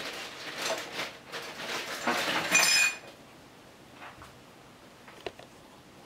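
Metal clattering and clinking as an espresso machine portafilter is fetched and handled among other metal kitchen items, with a short ringing clink about two and a half seconds in. After that it is quieter, with a single sharp click near the end.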